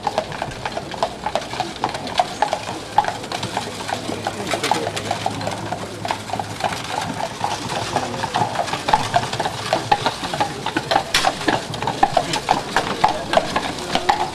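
Horse hooves clip-clopping, a steady run of quick, sharp strikes.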